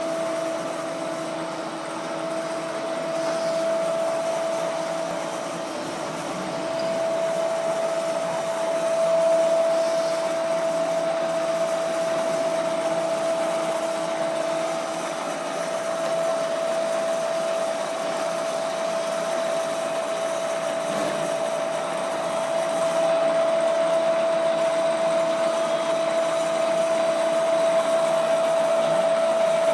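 WMW BS25-AI industrial column drill running steadily, its motor and geared head giving a continuous mid-pitched whine over a mechanical hum.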